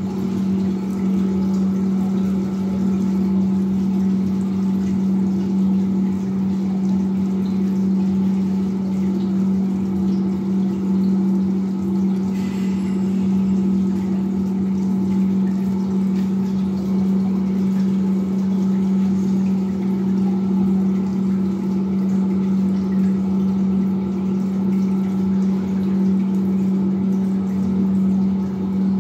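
Water pump of a hydraulic bench running steadily, a constant low hum with faint water hiss, supplying water to a Hele-Shaw flow apparatus.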